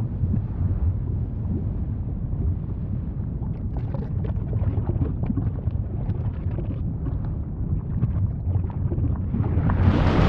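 Low, steady rumble of an erupting volcano with scattered crackles, swelling sharply louder and hissier near the end.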